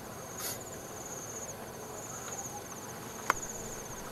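Insects trilling high and steady in pulsed bursts about a second long with short breaks, over faint outdoor background noise. A single sharp click about three seconds in.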